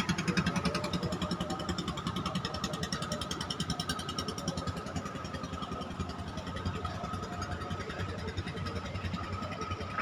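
Klotok river boat's engine running with a fast, even chugging, gradually getting quieter.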